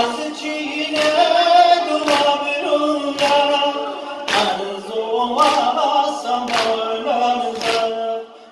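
A crowd of men singing a Muharram noha together without instruments, with a loud communal chest-beat (sineh-zani) landing about once a second. The singing breaks off briefly near the end.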